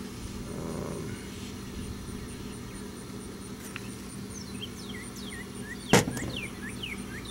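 Outdoor air-conditioning condenser unit running with a steady hum. In the second half a bird sings a quick series of short falling chirps, and there is one sharp knock about six seconds in.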